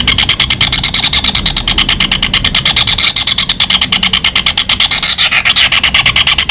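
Kingfisher (tengkek udang) giving its long 'ngek-kek' rattle: a fast, unbroken series of sharp, high calls, about ten a second, with a slight rise and fall in pitch.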